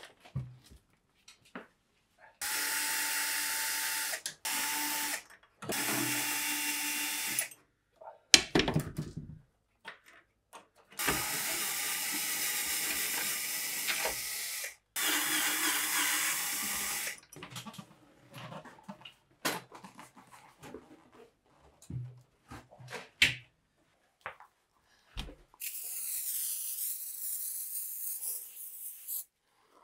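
Cordless drill-driver with a socket bit running in five short bursts, unscrewing nuts from a pinball cabinet's metalwork, with a loud sharp clatter about eight seconds in and small knocks of handled parts between runs. Near the end a spray can hisses steadily for about four seconds as cleaner is sprayed onto the glass.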